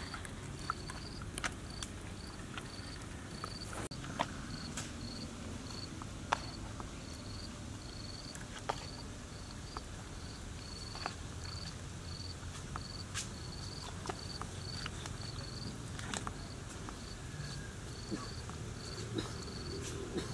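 An insect chirping in a steady, even rhythm of high short pulses, about two a second, with scattered sharp clicks.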